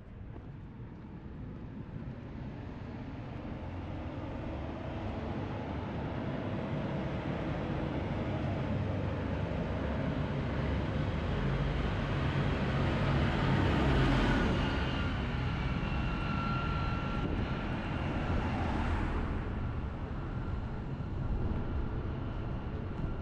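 Farm tractor's diesel engine approaching along the road, getting steadily louder, passing close about two-thirds of the way in, then fading, with a second rush of tyre noise a few seconds after the pass.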